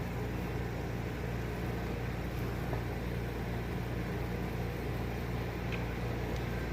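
Steady low background hum, even and unchanging, with no separate knocks or engine sound.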